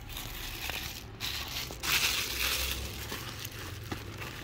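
Plastic packaging and bubble wrap crinkling and rustling as they are handled in a cardboard box, loudest about halfway through, with a few sharp crackles.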